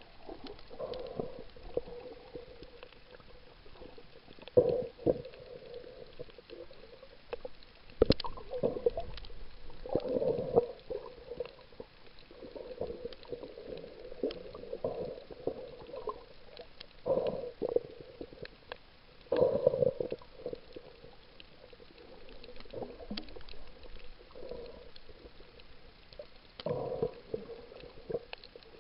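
Muffled underwater sound picked up by a camera in a waterproof housing: irregular gurgling swells of moving water every few seconds, with faint scattered clicks throughout.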